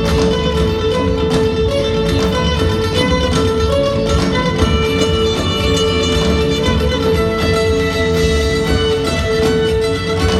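Live band playing an instrumental passage, with guitar and plucked strings over bass and drums.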